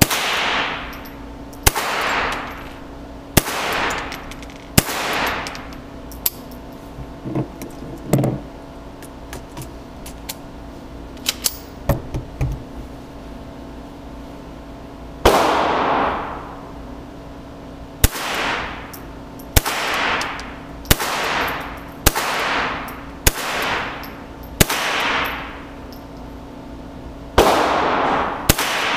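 Ruger 10/22 Tactical .22 LR carbine firing single aimed shots, about a dozen in all, spaced one to three seconds apart. Each crack is followed by a ringing echo in the range that dies away over about a second. A pause of some ten seconds in the middle holds only a few light clicks.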